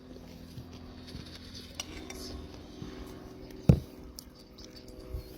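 Cutlery and dishes clinking during a meal, with one sharp, loud knock about three and a half seconds in, over a steady low hum.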